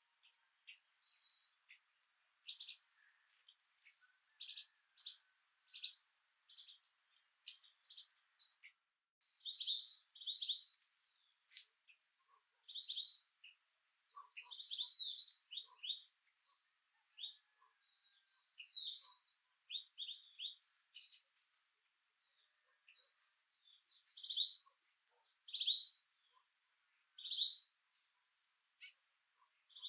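Small birds chirping: short, high chirps come at irregular intervals, often in pairs or quick runs, with quiet gaps between them.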